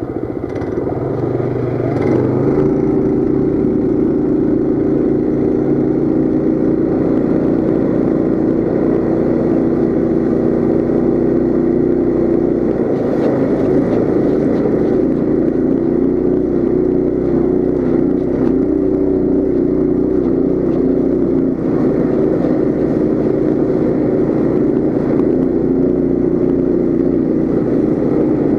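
Coleman CT200U mini bike's single-cylinder four-stroke engine under throttle while riding on snow. It speeds up about two seconds in, then holds steady revs.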